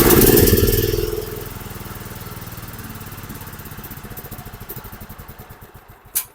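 Dixon 4422 zero-turn mower's engine running just after starting, now that the relay has been replaced. It is loud for about the first second, then settles to a lower, fading run. A sharp click comes near the end.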